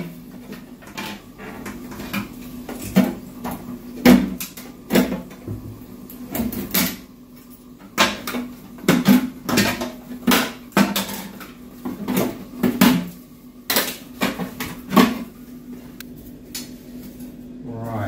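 Irregular plastic clicks, knocks and rattles as hands work the parts inside a Geberit concealed cistern's flush-plate opening, some sharp and loud, over a faint steady low hum.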